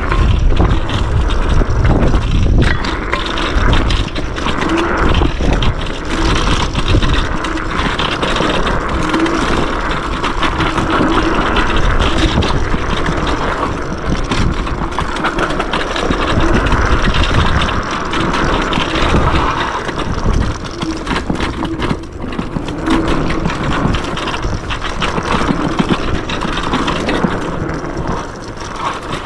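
Yume X11 electric scooter ridden along a dirt trail: a steady rush of wind and tyre noise, with frequent small knocks and rattles over the bumps.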